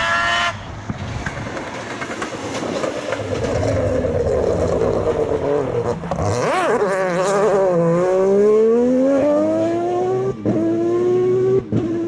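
Fouquet Mazda prototype rally car's engine passing at speed: it nears with a rising rush, the pitch wavers and falls as it slows through a corner on the wet road, then climbs steadily as it accelerates away, broken by two quick gear changes near the end.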